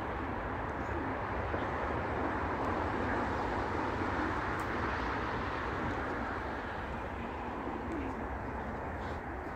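Racing pigeons cooing around their loft, over a steady background rush.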